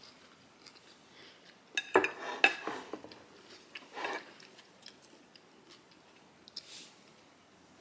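Cutlery clinking and scraping against a bowl during eating: a quick cluster of clicks and clatters about two seconds in, then a shorter clatter about four seconds in and a few faint ticks.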